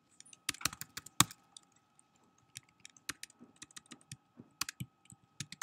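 Typing on a computer keyboard: irregular key clicks, a quick run of them in the first second and scattered taps after.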